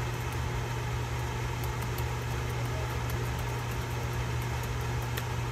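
Steady low background hum with a few faint clicks scattered through it.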